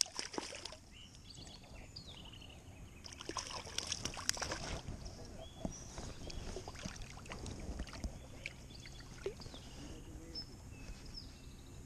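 Scattered rustling and clicking with some water splashing, and a small bird chirping several times in short high calls.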